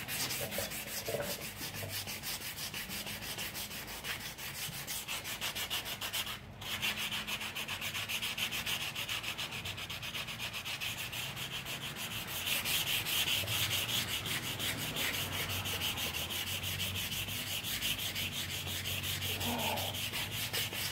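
Sandpaper rubbing over body filler by hand in quick, even back-and-forth strokes, with a brief break about six seconds in and somewhat louder strokes from about halfway. The 180-grit paper is sanding filler that is still soft enough to clog it.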